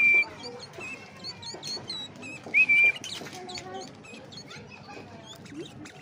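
Sooty-headed bulbul (kutilang) calling: two loud whistled notes about two and a half seconds apart, each a short upward slide into a held note, amid many softer high chirps.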